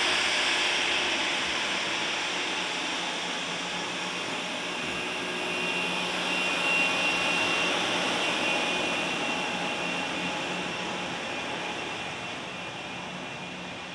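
Turbofan engines of a twin rear-engined business jet taxiing past at low power: a steady hiss and whine. A high thin tone rises out of it around the middle, and the sound slowly fades toward the end as the jet moves away.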